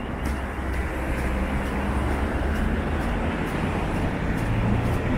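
City traffic: cars and a minibus driving through an intersection, a steady engine and tyre rumble on a slushy road. Footsteps tick along evenly, about two a second.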